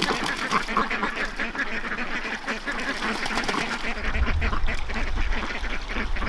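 A flock of domestic ducks quacking continuously, many birds calling over one another. A low rumble comes in about four seconds in.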